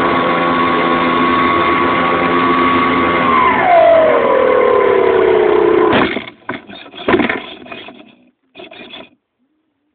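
RC Flightstar model plane's motor running steadily, then falling in pitch over a few seconds as it slows. A sudden crash impact about six seconds in is followed by a few more knocks and thuds over the next three seconds.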